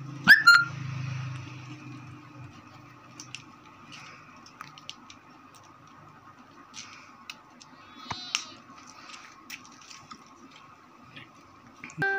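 Scattered clicks and taps of small parts being handled during a pedestal fan motor repair, with a sharp clack about a third of a second in, over a faint steady electrical hum.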